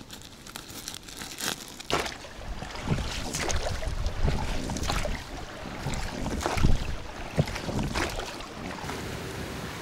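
Brief rustling of a woven sack, then oars of a small inflatable rowing boat dipping and splashing in irregular strokes, with wind rumbling on the microphone.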